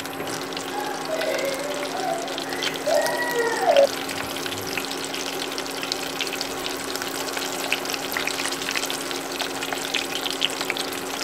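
Breadcrumb-coated chicken pieces deep-frying in hot oil in a small pot: a steady sizzle with many small crackles and pops, as the pieces fry on to turn golden and crisp.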